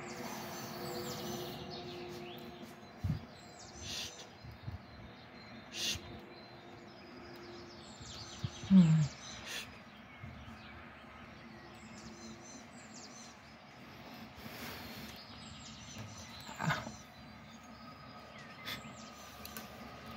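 A songbird singing short, high phrases every few seconds over a steady distant town hum. A brief low falling sound about nine seconds in is the loudest moment, and there are a few sharp clicks.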